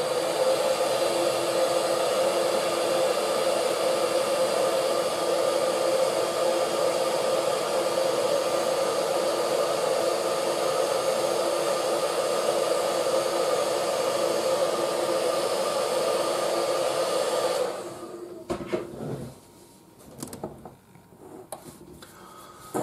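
Hair dryer running steadily, a constant rush of air with a low hum, used to dry fresh acrylic paint; it switches off about 18 seconds in. A few light knocks follow, with a sharper one near the end as the painted bust is set down on the cutting mat.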